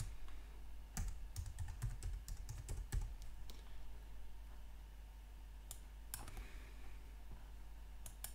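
Typing on a computer keyboard: a quick run of keystrokes over the first three seconds, then a few scattered single clicks.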